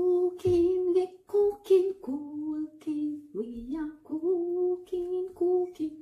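A woman humming a tune to herself, a string of held notes about half a second each.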